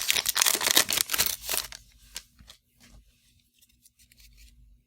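Wrapper of a 2020 Panini Absolute Football trading-card pack crinkling as it is opened: a dense crackle for about the first two seconds, then a few faint rustles and ticks.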